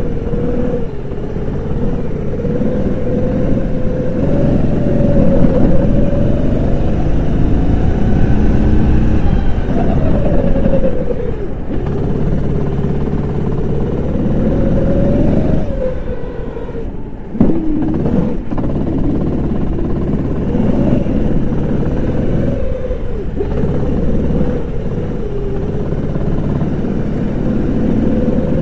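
Kart engine at racing speed, heard onboard, its note rising under throttle and falling off each time the driver lifts for a corner. The deepest drop, a hard slowdown, comes a little past halfway and is followed by a quick climb back up.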